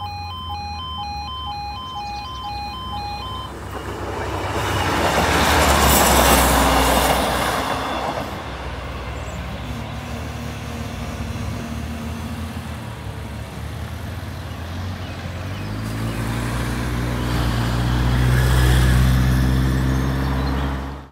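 A level crossing's two-tone alarm pulses, then stops a few seconds in. A Class 156 diesel train passes, loudest about six seconds in and then fading. Near the end a motorcycle engine comes closer and grows louder.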